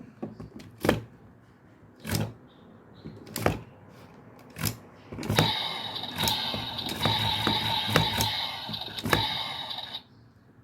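Kamen Rider Build transformation-belt toy: several sharp plastic clicks and knocks as it is handled. Then its small speaker plays an electronic sound effect with held tones and a regular beat for about five seconds, which cuts off abruptly.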